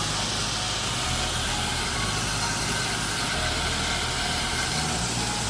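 Pressure washer running steadily, its engine under a constant hiss of high-pressure water spray rinsing a screen enclosure.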